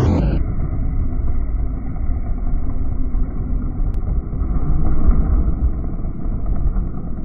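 Snowmobile running hard close by: a steady, muffled low rumble.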